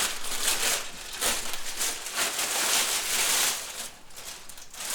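Packaging rustling and crinkling in a run of bursts as a turntable is lifted out of its wrapping, dropping off for about the last second.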